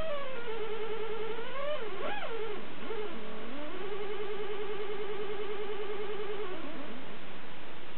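Homemade sound generator made of two linked neon-bulb relaxation oscillators, giving a warbling electronic tone with a fast wobble. It slides down in pitch, swoops up and down about two seconds in, dips low, then holds a steady warble before falling away near the end, over a constant hiss.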